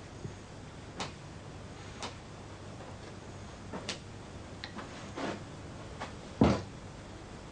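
Scattered light knocks and clicks, about half a dozen at uneven intervals, the loudest a dull thump about six and a half seconds in.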